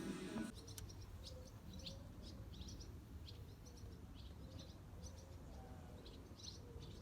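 Background music cuts off about half a second in, leaving small birds chirping repeatedly in short high calls over a steady low hum.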